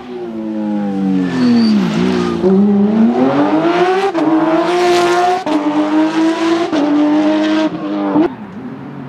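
Porsche 911 GT3 rally car's flat-six engine at full racing load: the revs fall away under braking, then climb hard through several quick upshifts, each a sudden dip in pitch, before the throttle is lifted near the end.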